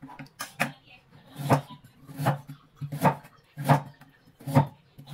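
Large kitchen knife chopping through food onto a wooden cutting board, a steady series of knocks about one every 0.8 seconds.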